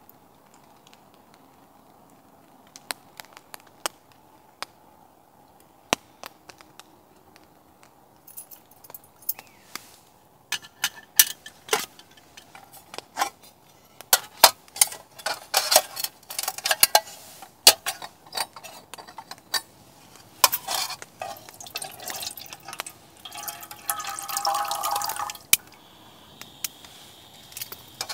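Camp cooking: scattered clicks and clinks of utensils and dishes that grow busier after the first few seconds, with liquid poured for a second or so near the end.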